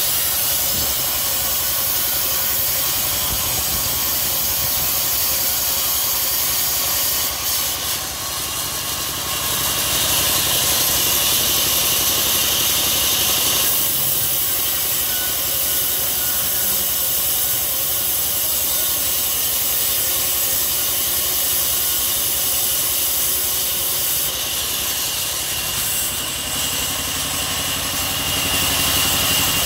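Sawmill band saw running and cutting through a long teak plank. A steady mechanical drone carries a hissing rasp from the blade, which grows louder for a few seconds twice: about ten seconds in and again near the end.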